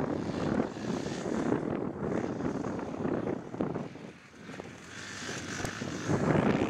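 Motocross bike engine running, its level rising and falling, with a dip about four seconds in.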